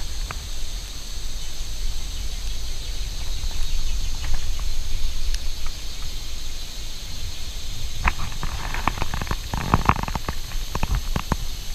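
Outdoor forest ambience: a steady high-pitched drone over a low rumble. About eight seconds in, a quick run of sharp clicks and knocks begins.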